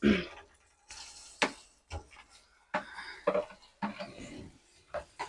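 Metal slotted spoon knocking and scraping against a plate and a steel kadai as mashed boiled potatoes are pushed into the pan: a series of short, irregular clatters.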